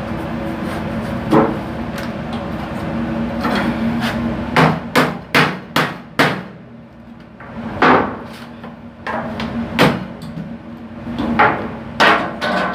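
A hammer knocking on metal paint cans: about a dozen sharp, irregular strikes, with a quick run of five about halfway through, over a steady hum.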